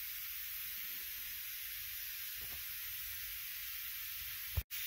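Steady faint hiss of background noise with no distinct event, and a short click with a brief dropout near the end.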